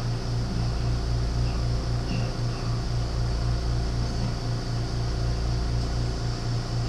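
A steady low mechanical hum with a throbbing pulse about five times a second, over a constant hiss.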